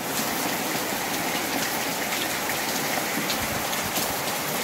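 Steady rain falling, a dense even hiss with many small sharp ticks of individual drops striking surfaces.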